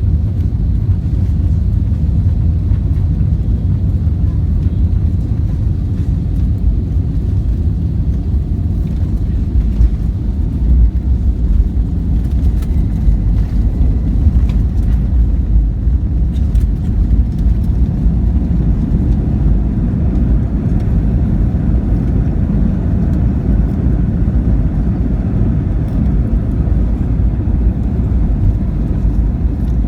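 Steady, loud low rumble of jet engines and rushing air heard inside an airliner cabin, with a few light clicks or rattles near the middle.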